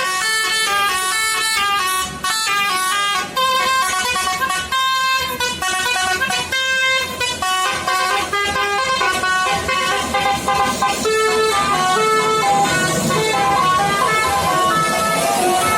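Multi-tone telolet horns of the Basuri vehicle playing a fast tune, one short pitched note after another with brief gaps.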